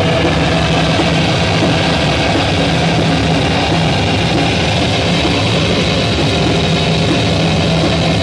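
Guitar amplifier putting out a loud, steady, distorted drone with a low hum underneath, held without any beat.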